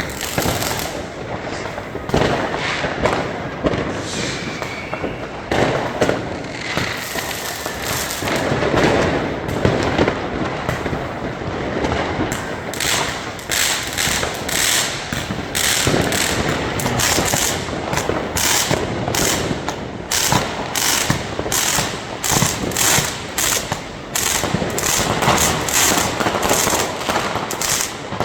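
New Year's Eve fireworks and firecrackers going off all around in a continuous barrage of overlapping bangs and booms. From about twelve seconds in, rapid strings of sharp crackling cracks join the bangs.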